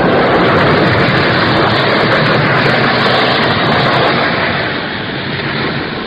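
Loud steady rushing noise with no clear pitch, a radio-drama sound effect, easing off a little after about four and a half seconds.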